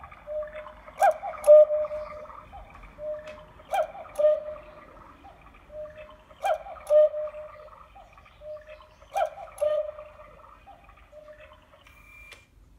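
Black Forest cuckoo clock striking the hour: the bird's two-note cuckoo call, each with a mechanical click, sounding four times about two and a half seconds apart, with fainter works clicks between calls. A last click sounds near the end.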